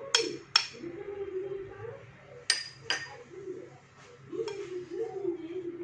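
A kitchen utensil clinking against a mixing bowl: four short ringing clinks in two pairs about half a second apart, the first pair at the start and the second about two and a half seconds in.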